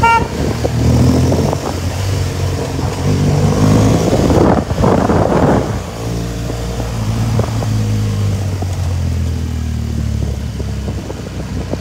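Motorcycle engine running steadily as the bike is ridden along, with a short rushing burst of noise about four and a half seconds in.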